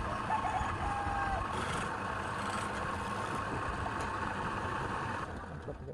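Woodworking machine running steadily with a thin whine over a noisy hum, cutting off about five seconds in.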